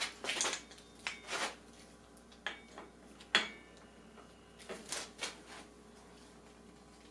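Metal clinks and knocks of bicycle crank parts and tools being handled, a string of irregular strikes with the loudest, about three and a half seconds in, leaving a short metallic ring. The strikes die away after about five and a half seconds.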